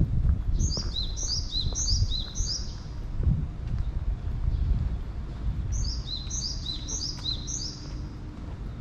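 Small birds singing: two bursts of quick, repeated, high down-slurred chirps, one in the first few seconds and another about six seconds in, over a low background rumble.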